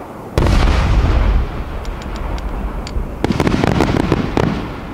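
Aerial firework shells bursting: a deep boom about half a second in that rumbles on for about a second, a few light crackles, then a quick run of bangs from about three seconds in.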